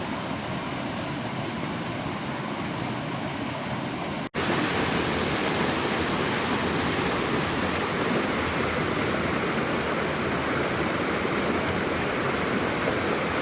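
Steady rush of rain-swollen creek water flowing, which jumps louder at an abrupt cut about four seconds in.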